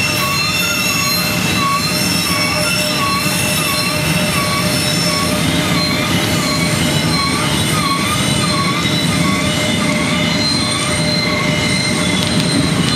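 Loaded coal hopper cars of a Norfolk Southern freight train rolling past: a steady rumble of wheels on rail with continuous high-pitched wheel flange squeal from the sharp curve, and a wavering tone that pulses about twice a second.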